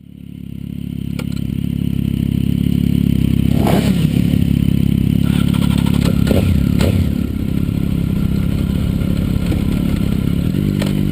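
Motorcycle engines running at low revs, a steady low rumble that fades in over the first couple of seconds, with a few sharp clicks.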